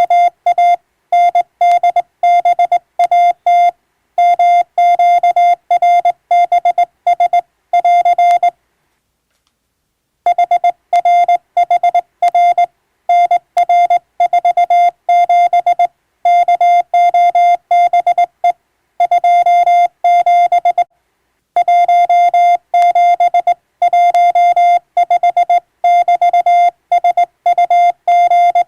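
Morse code (CW): a single steady tone keyed on and off in dots and dashes. It breaks off for nearly two seconds about eight and a half seconds in, and again briefly around twenty-one seconds.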